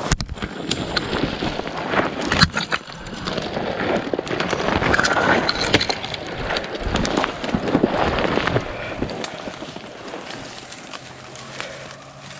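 Footsteps crunching through dry leaves and brush, with twigs cracking and snapping in quick, irregular succession; it eases off after about nine seconds.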